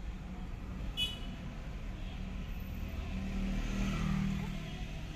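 Street traffic heard from inside a car: a steady low engine hum, a short sharp high sound about a second in, and a passing motor vehicle growing louder around three to four seconds in.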